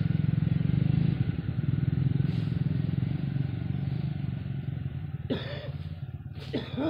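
A small engine running with a steady drone that fades gradually away. Near the end come two short sliding voice-like calls.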